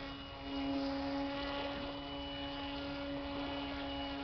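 Hand-made RC airboat's motor and air propeller running at a steady speed: a constant drone of one unchanging pitch.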